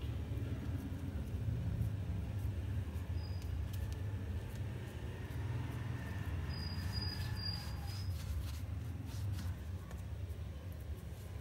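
Steady low background rumble, with faint soft taps and presses of hands shaping and flattening a ball of stuffed dough on a floured marble counter.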